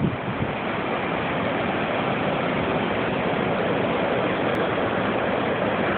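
Steady roar of heavy ocean surf breaking on the beach, driven by a hurricane swell, with wind buffeting the microphone.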